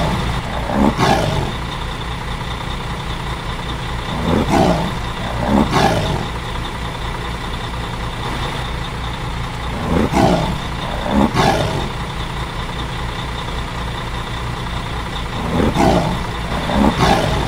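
Steady truck-engine rumble sound effect, with tiger roar sound effects coming in pairs about every five to six seconds; the roars are the loudest sounds.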